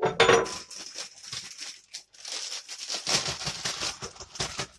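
Plastic piping bag full of batter rustling and crinkling as it is handled and lifted out of a glass jar, with a louder knock just at the start.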